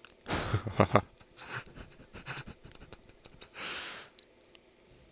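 A man's breathy, stifled laugh, a few short pulses about a second in, then a long exhale through the nose a little before the four-second mark.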